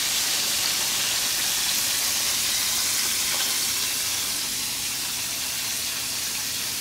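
Chicken pieces frying in hot oil: a steady sizzle.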